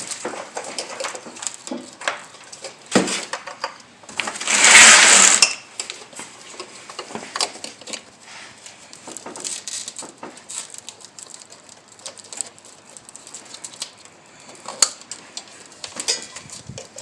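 Hard plastic clicks, taps and rattles as wiring connectors and bulb sockets are handled and plugged into a headlight assembly. A loud rustling hiss lasting about a second comes about four and a half seconds in.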